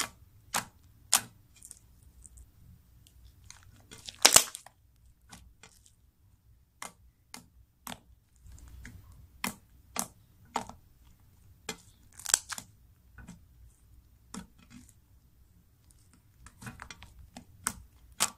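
Over-activated, jiggly glue slime being squeezed and poked by hand for ASMR: scattered sharp clicks and small pops as trapped air bursts, with two louder crackling pops about four seconds in and again about twelve seconds in.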